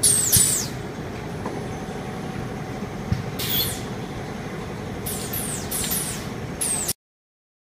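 Screen-printing shop machinery running with a steady hum, broken several times by short downward-sweeping hisses of air from the press's pneumatic valves. The sound cuts off abruptly near the end.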